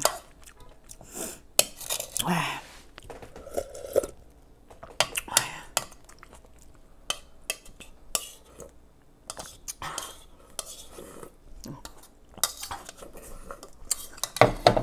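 A ceramic soup spoon clinking and scraping in a bowl as the last of the soup is eaten, with short slurps from the bowl. Near the end there are a few louder knocks as the bowl comes back down.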